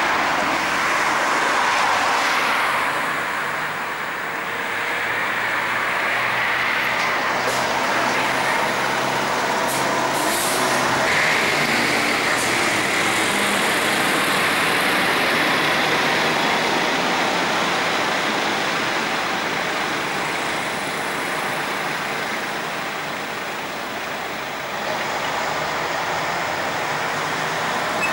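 Street traffic: cars and a city bus running in slow traffic, a steady mix of engine and tyre noise, with a brief hiss about eleven seconds in.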